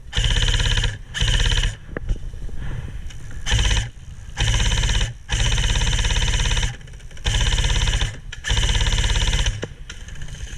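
Airsoft electric gun firing on full auto in a string of about seven bursts, each a fast, even, buzzing rattle lasting from half a second to well over a second.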